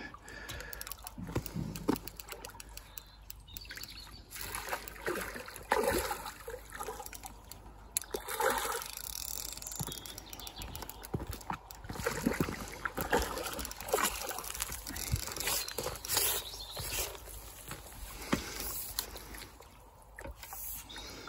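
Water splashing and sloshing in irregular bursts as a hooked mirror carp thrashes at the surface close to the bank while being played.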